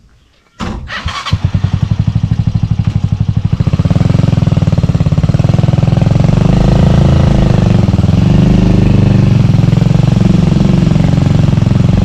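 Honda TMX 125 Alpha's single-cylinder four-stroke engine starting about half a second in, with a quick rapid pulsing as it catches, then running steadily and loud from about four seconds.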